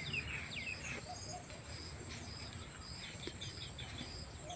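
Rural outdoor ambience: birds calling in short repeated chirps over a steady high-pitched drone of insects.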